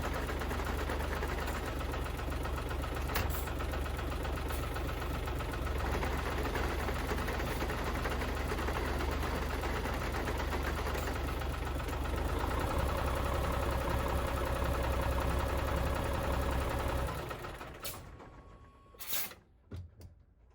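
Hino Profia heavy truck's diesel engine running steadily. About two-thirds of the way through, the sound shifts to a heavier hum with a steady whine over it. It dies away near the end and is followed by a few clicks.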